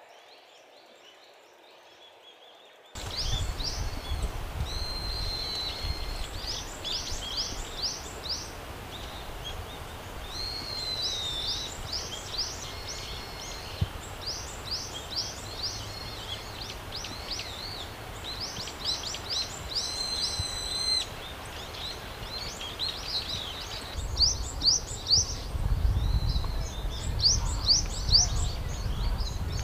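Brown-eared bulbuls calling loudly, starting about three seconds in: rapid runs of shrill, downward-sliding notes mixed with longer whistled squeals, over a low rumble that grows heavier near the end.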